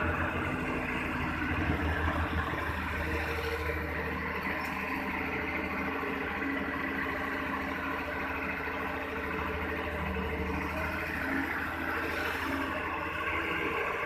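Kato HD450SE hydraulic excavator's diesel engine running steadily under working load as the machine digs and swings.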